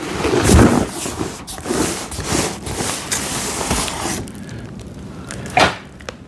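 A cardboard shipping box being handled and opened: scraping and rustling of cardboard with a few knocks, the sharpest near the end.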